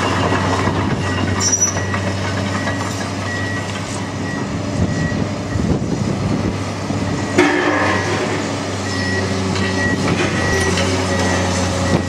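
Tracked demolition excavator running steadily as its arm pulls at a brick church wall, with brick and masonry clattering and crunching down. A sharper crash comes about seven seconds in.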